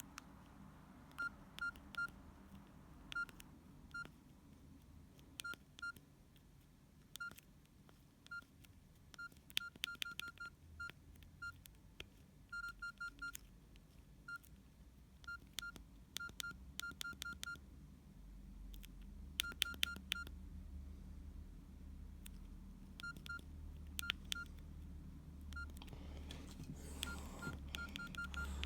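Nokia 6120 classic's keypad tones: short beeps, all at the same pitch, each with a faint key click. They come at an uneven pace, singly or in quick runs of several presses, as keys are pressed.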